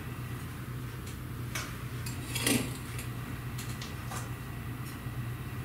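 A metal spoon clinking and scraping against a clear glass trifle bowl and a stainless steel mixing bowl as a cream cheese mixture is spooned in and spread. There are a few short clinks, the loudest about two and a half seconds in, over a low steady hum.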